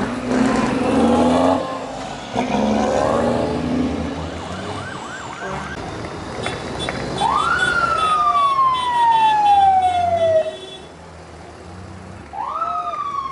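Truck air horn sounded in two blasts in the first few seconds, over passing engine noise; then a vehicle siren sweeps up and slowly falls, and starts a second sweep near the end.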